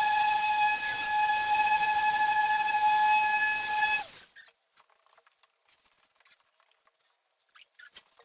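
Steady high-pitched whine of a Krauss S8 dual-action car polisher running in sped-up footage, stopping abruptly about four seconds in; after that only faint small clicks.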